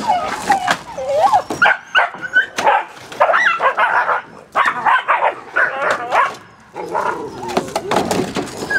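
Dutch Shepherd puppy yipping and whining: a quick string of short, high calls that bend in pitch, broken by a couple of brief pauses.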